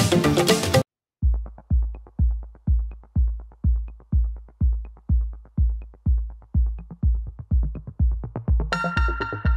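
Background electronic music: a busy track cuts off just under a second in, and after a short gap a steady drum-machine bass beat starts, nearly three beats a second with a faint click over it. A synth melody joins near the end.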